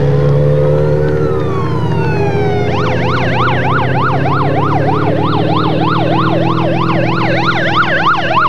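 Siren of a race escort vehicle, first a slow rising-and-falling wail, then switching a little under three seconds in to a fast yelp of about three rises a second, over the steady running of a vehicle engine.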